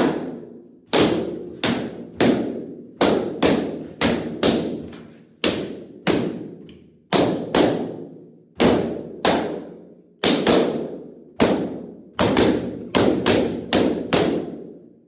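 Latex party balloons bursting one after another as they are crushed by hand: about two dozen sharp pops in quick, uneven succession, each with a short ringing tail.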